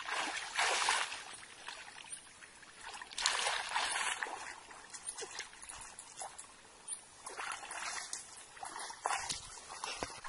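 Shallow muddy pond water splashing and sloshing in about four irregular bursts as children wade through it, working a mosquito net.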